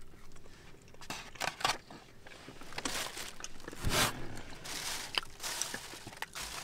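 Soft eating and handling sounds: a brownie being chewed and a foam takeout container being handled, a scatter of small clicks and rustles with a louder rustle about four seconds in.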